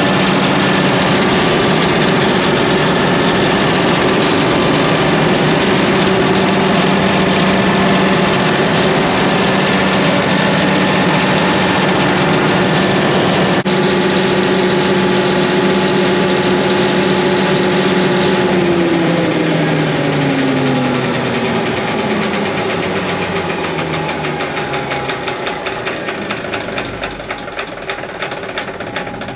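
Caterpillar C18 turbocharged inline-six diesel in an industrial generator set running at a steady speed. About two-thirds of the way through, its pitch falls as the engine winds down, ending in slower, separate pulses as it coasts toward a stop.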